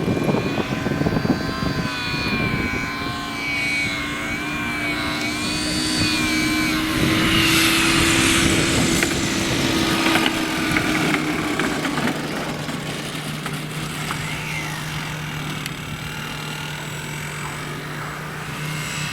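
Radio-controlled model airplane's engine running as the plane comes in to land, with a wavering whine over the first several seconds and a louder, noisier swell about eight to ten seconds in before settling to a steadier hum.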